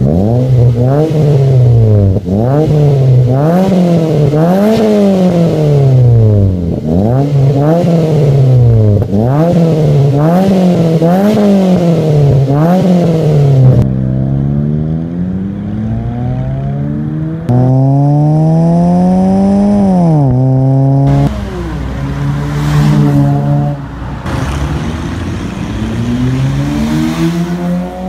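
A 2005 Mazda 3's four-cylinder engine through an aftermarket catback exhaust with a single large muffler tip, revved in quick blips about once a second while the car stands still. About halfway through the car accelerates away, the exhaust note rising in long sweeps that drop suddenly at each gear change.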